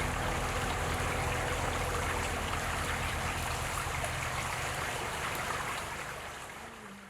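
A bush stream flowing, a steady rush of water that fades down over the last second or two.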